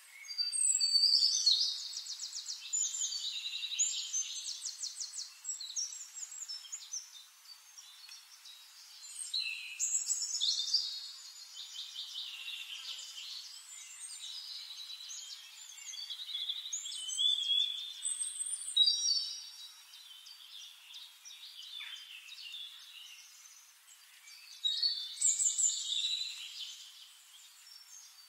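Songbirds singing: a loud burst of chirps and rapid trills about every five to eight seconds, with quieter twittering in between.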